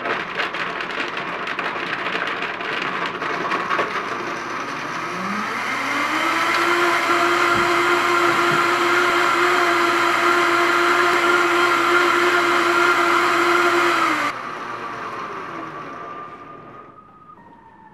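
Vitamix Pro 750 blender motor switched on and blending a cashew sauce. Its pitch climbs to a higher, steady whine about five seconds in. It is switched off about fourteen seconds in and winds down with a falling whine.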